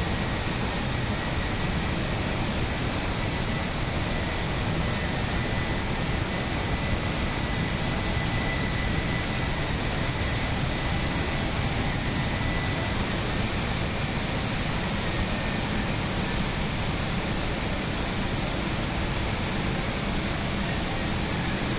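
Steady rushing hiss and roar of robotic paint spraying in a car-body spray booth, from the rotary bell atomizers and the booth airflow. A faint thin high whine runs over it and fades out a little past halfway.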